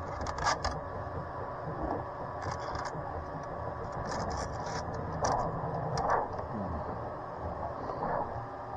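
Small screws being slipped back through a plastic filter holder into a laser engraver head and turned in by hand: a series of short clicks and scrapes, several times, over a steady low hum.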